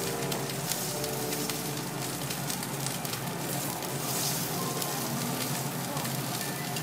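Cubes of fat sizzling on a hot steel teppanyaki griddle, a steady hiss.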